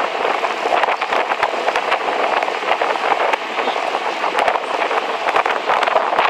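A small boat under way: a steady rushing, crackling noise of water and motor that runs without a break.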